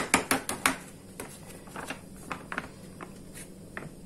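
Plastic bag of oat flour crinkling as it is shaken over a plastic bowl: a quick run of crackles at about six or seven a second that stops under a second in, then a few scattered faint crinkles.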